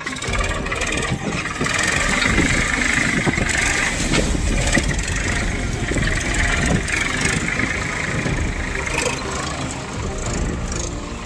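Swaraj 742 XT tractor's diesel engine running steadily.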